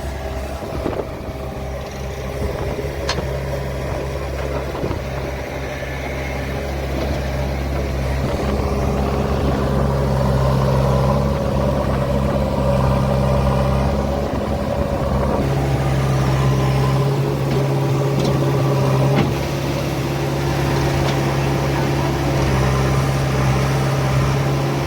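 Heavy diesel engine running with a steady low hum, growing louder about a third of the way in.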